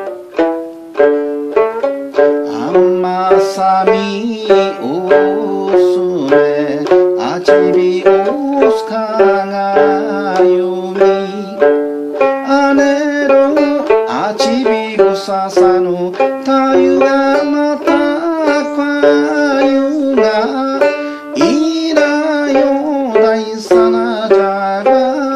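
Okinawan sanshin played, a quick run of plucked notes of an eisa folk tune.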